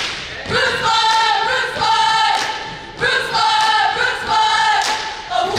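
A cheerleading squad yelling a cheer in unison, two long chanted phrases with sharp thuds between, in a gym.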